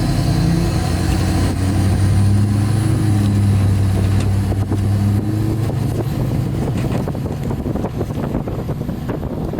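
A vehicle engine running steadily for about five seconds, then a rushing, rattling noise with many small clicks, like wheels running fast over pavement.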